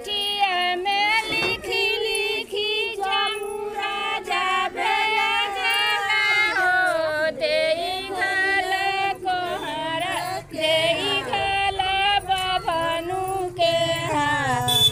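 A group of women's voices singing a Godhan festival folk song together, in continuous phrases.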